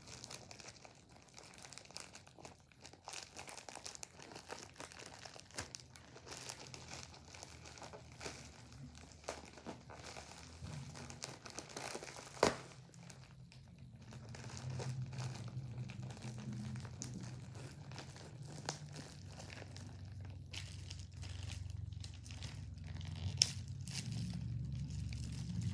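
Packaging being torn open and handled: continuous crinkling and crackling of the wrapping and bubble wrap, with one sharp click about halfway through.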